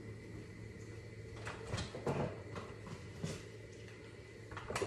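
Refrigerator door being opened and items handled inside it: a few scattered soft knocks and clunks, over a low steady hum.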